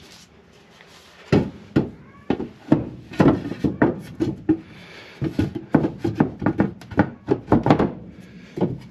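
Loose wooden floorboards of a boat's engine room sole being dropped and shuffled into place, a run of irregular wooden knocks and clatters starting about a second in.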